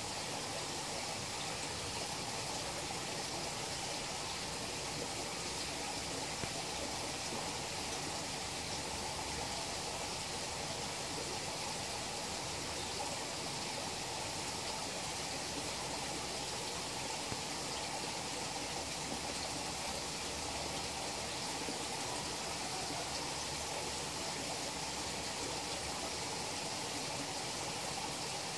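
Steady rush of running water in a fish pond.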